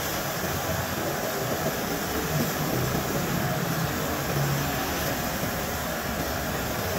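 Gravity-feed spray gun hissing steadily as compressed air atomizes paint during spraying, with a low hum underneath.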